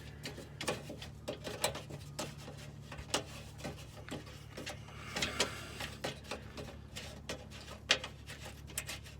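Irregular small clicks and scrapes of a screw being turned into the plastic engine skid pan under a Honda CR-V, over a steady low hum.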